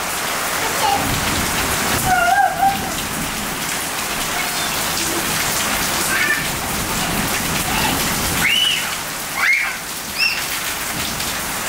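Heavy rain pouring onto wet paving, a steady hiss, with a few short high-pitched squeals over it, most around two seconds in and in the last few seconds.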